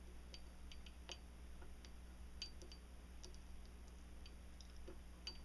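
Faint, irregular light clicks of small metal parts being handled as the back plate is worked onto a Glock 23 pistol slide, with the striker and spring-loaded plunger held down.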